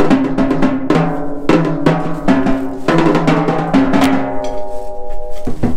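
Pearl Roadshow acoustic drum kit played with sticks: a quick, uneven run of hits across the snare and toms, the toms ringing on with a clear pitch. Near the end the strikes stop for about a second and the ringing fades before a few more hits.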